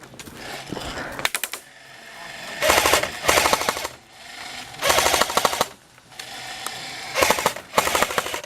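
Airsoft guns firing in rapid full-auto bursts: several bursts of about half a second to a second each, a second or two apart.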